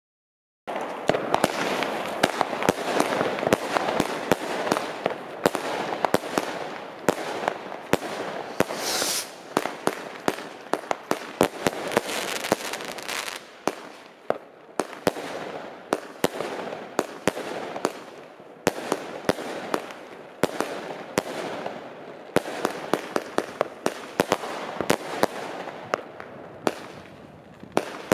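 Weco Black Ice multi-tube fireworks battery firing: a fast, unbroken stream of shots and crackling, with sharp cracks several times a second. It starts about half a second in.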